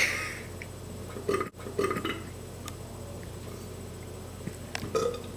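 A man burping several times in short throaty bursts over a steady low electrical hum.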